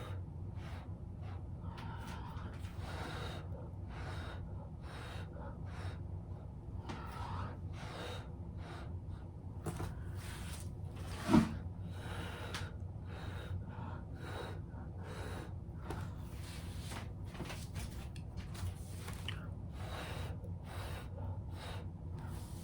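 Repeated short puffs of breath as wet acrylic paint is blown across a canvas by mouth, over a low steady hum. One brief, louder pop comes a little past halfway.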